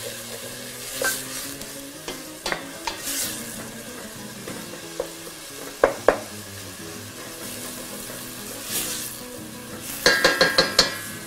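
Wooden spoon stirring a soffritto of onion, carrot and celery sizzling in olive oil in a stainless steel pot, scraping and knocking against the pot now and then. Near the end a quick run of about six sharp, ringing knocks.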